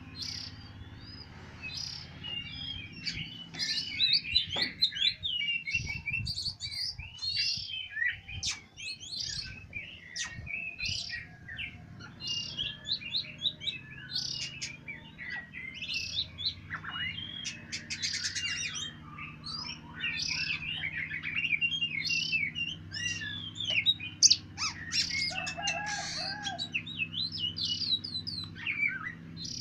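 Oriental magpie-robins chirping and singing: a dense, varied run of short whistled chirps, glides and trills that goes on without a break.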